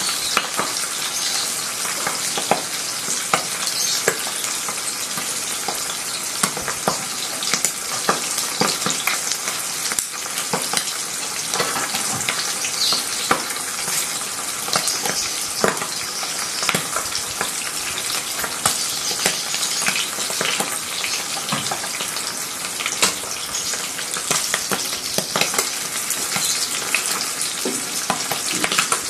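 Two butterflied milkfish (dinaing na bangus) frying in hot oil in a frying pan: a steady sizzle full of quick crackles and pops of spattering oil.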